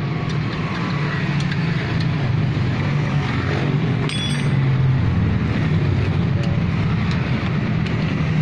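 A steady low drone of a running engine, with scattered light clicks and a brief metallic clink about four seconds in from hand tools at the wheel hub.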